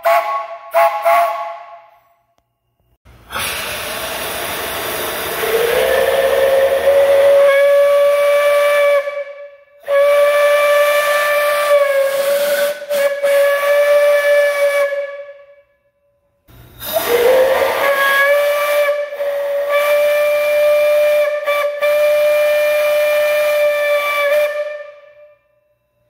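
Steam whistles blown on a shop steam boiler. In the first second or so a three-chime whistle gives a few short toots of several notes together. After that a 3-inch single-chime Lunkenheimer whistle sounds three long blasts, each a single steady note over a steam hiss; the first and last start with a rush of steam that slides up into the note.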